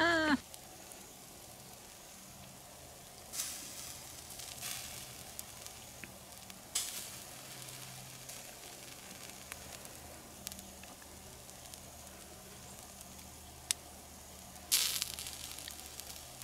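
Steaks sizzling as they cook, a steady frying hiss with a few sudden louder spurts of sizzle.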